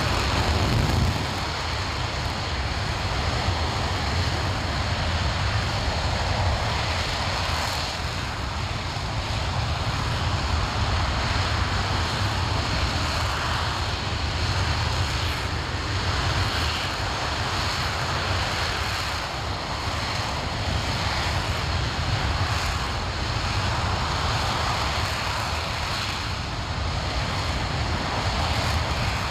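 RS-25 liquid-hydrogen/liquid-oxygen rocket engine firing on a test stand, a loud, steady roar that swells and eases slightly but never stops.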